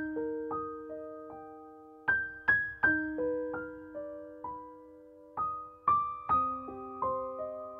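Background music: a slow, gentle piano melody of single struck notes and soft chords, each note ringing on as it fades.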